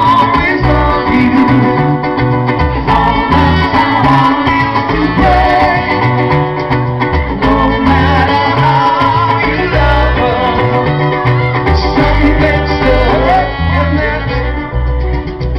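Live band playing amplified through a stage PA: a trumpet carries the melody over strummed acoustic guitar, electric guitar and a cajón beat.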